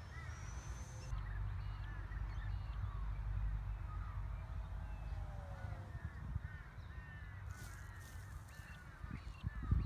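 Many short bird chirps and calls, over a steady low rumble of wind on the microphone.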